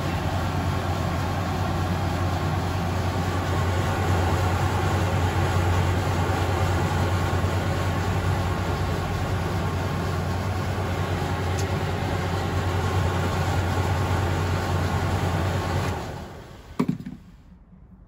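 Hotpoint Aquarius TCM580 condenser tumble dryer running with its door open, a steady motor hum with the drum turning on its newly fitted drive belt: a test run after the repair. The hum winds down and stops about sixteen seconds in, followed by a sharp click.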